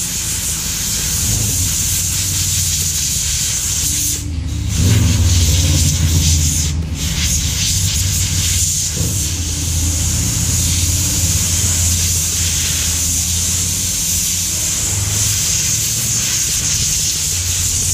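Compressed air hissing steadily from a blow gun on an air hose, blowing dirt off the top of a removed fuel tank. The hiss cuts out twice for a moment, a little over four seconds in and again near seven seconds, as the trigger is let go.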